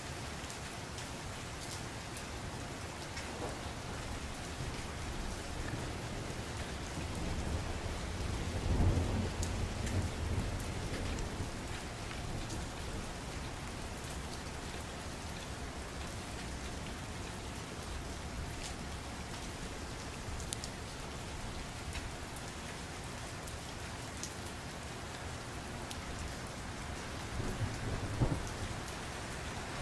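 Steady rain, with a low rumble rising and fading about nine seconds in and a shorter one near the end.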